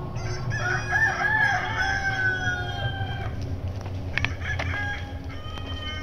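Rooster crowing once: a long crow of about three seconds, wavering at first and then drawn out on a held note. A few light clicks follow.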